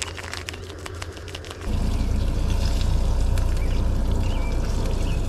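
Dry fish-fry breading shaken from a cardboard box onto flounder fillets in a paper towel, a run of light rattling ticks. About a third of the way in, a steady low rushing noise sets in suddenly and holds.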